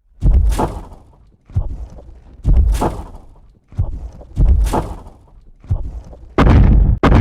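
Cartoon sound effects of a giant dinosaur: heavy booming thuds about a second apart, each fading out in a rumble. Near the end they give way to a quick run of louder pounding thuds.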